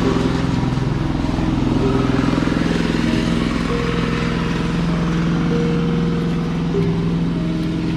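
A motor engine, such as a motorcycle's, idling steadily with a low even pulse. A few held higher tones step up and down over it.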